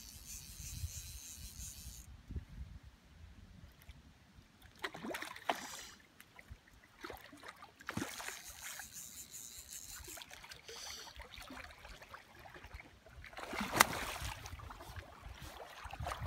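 Water splashing as a hooked grilse (young Atlantic salmon) thrashes and jumps at the surface, with a louder splash close by near the end. Short spells of high buzzing come at the start and again about halfway.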